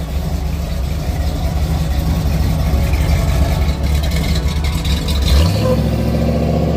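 Lifted Jeep CJ-7's engine running loudly as it pulls away and drives off, its note shifting about five seconds in.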